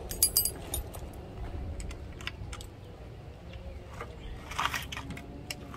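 Scattered small metallic clicks and taps of tools and parts being handled at an e-bike's front fork, with a quick rattling cluster right at the start and a short scrape about four and a half seconds in. A steady low rumble runs underneath.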